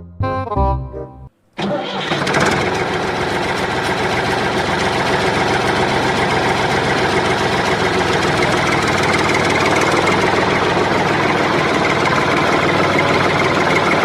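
An engine starts about a second and a half in and then runs steadily, preceded by a moment of music that cuts off.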